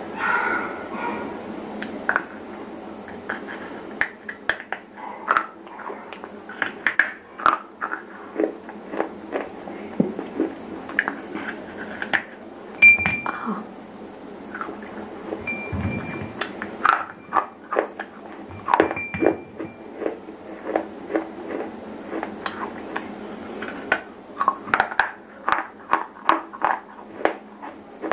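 Close-miked dry crunching and snapping of baked clay pieces, broken by hand and bitten, with many sharp separate cracks. A few brief ringing clinks come around the middle, as fragments hit a ceramic plate.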